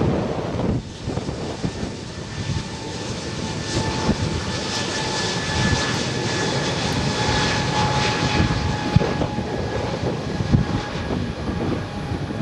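Fixed-wing aircraft's engines running as it passes, a broad rush of engine noise with a thin steady whine over it, a little louder through the middle.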